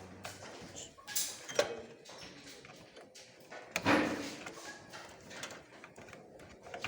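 Handling noises as power supply cables and connectors are worked inside a desktop computer case: a few sharp knocks and rustles, with a louder scraping clunk about four seconds in.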